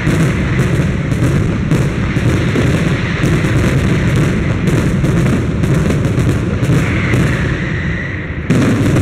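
Large aerial fireworks display: a dense, continuous barrage of rapid bangs and crackling explosions over a heavy rumble. A whistling tone rises above it about seven seconds in, and the barrage jumps suddenly louder near the end.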